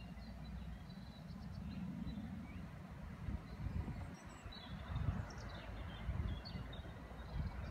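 Wind buffeting the microphone in an uneven low rumble, with faint, short, high chirps of small birds scattered through it.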